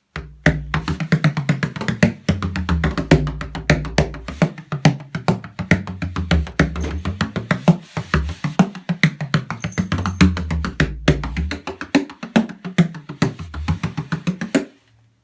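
An 18-inch Brendan White tunable bodhrán played with a tipper: a fast, unbroken run of strokes with a deep low tone whose pitch shifts as it goes. The playing stops suddenly near the end.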